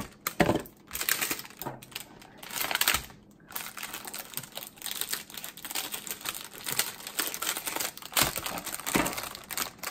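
Crinkly plastic cookie wrapper being handled and cut open with scissors: a dense run of crackling and clicking, with a few louder knocks in the first three seconds.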